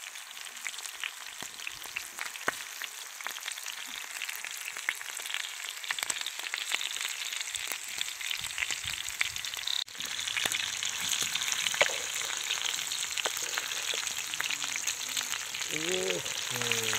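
Oil sizzling and crackling steadily as whole rats deep-fry in a pan. The crackle grows louder from about ten seconds in.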